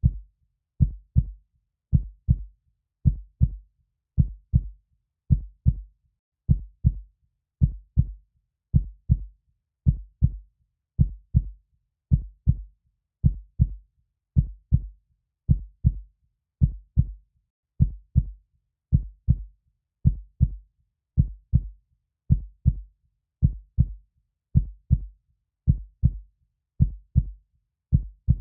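A heartbeat sound: a slow, steady lub-dub, with two deep thuds close together about once a second and silence between the pairs.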